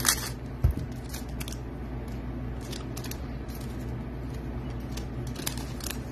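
Foil trading-card pack wrapper crinkling in the hands as it is torn open, in short, scattered crackles, with one soft thump about two-thirds of a second in, over a steady low hum.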